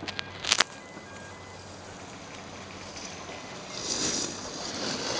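Snowboard edge scraping across packed snow, growing louder as the rider approaches, after a few sharp clicks about half a second in.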